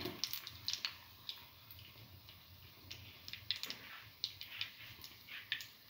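Shallow cooking oil crackling around a frying chickpea-batter egg fritter, with scattered small pops.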